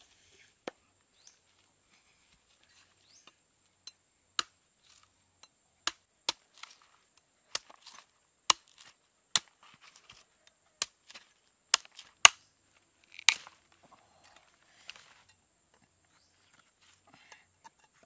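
A large knife chopping into the husk of a young green coconut: about a dozen sharp chops roughly a second apart, the hardest a little past the middle, then lighter cuts near the end.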